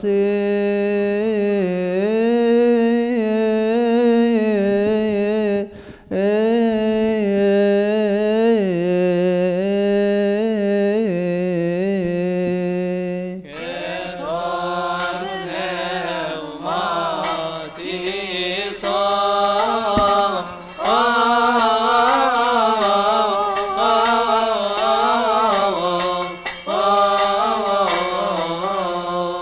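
Coptic Orthodox liturgical chant. A single male voice holds a long, slow melismatic line, and about halfway through a group of voices takes the chant up together, with frequent sharp clicks running under it.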